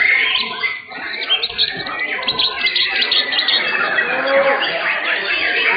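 Several caged white-rumped shamas (murai batu) singing at the same time during a contest, in a dense overlapping mix of whistles, chirps and rapid trills.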